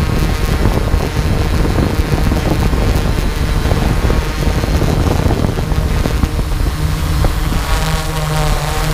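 Quadcopter drone's motors and propellers buzzing steadily, with wind rushing on the microphone; a lower hum comes up near the end as the drone drops toward the ground.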